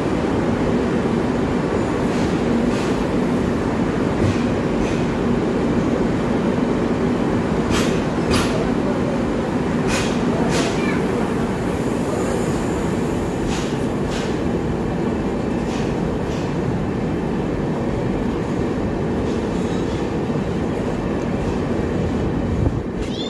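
Passenger train noise: a steady rumble and hum, with a few sharp clicks, most clearly about eight to eleven seconds in.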